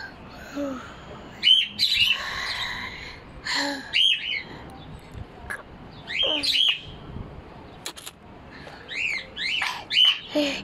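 Small birds chirping in short, sharp calls that come every second or two, some in quick pairs.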